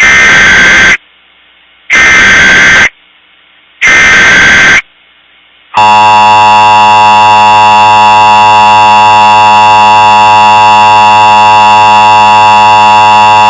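Emergency Alert System header: three one-second bursts of digital SAME data tones, about two seconds apart, with faint hiss between them, then the steady two-tone EAS attention signal sounding for about eight seconds.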